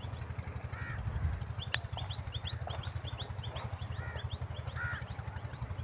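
Small birds chirping over and over with short rising notes, a few buzzier calls among them, over a low, fast-pulsing hum.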